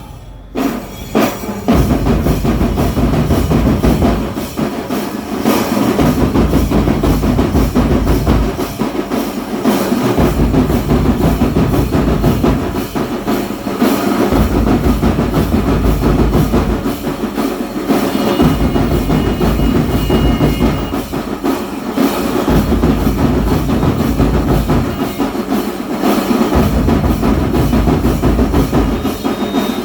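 Music with a heavy bass drum beat; the bass drops out for about a second and a half roughly every four seconds.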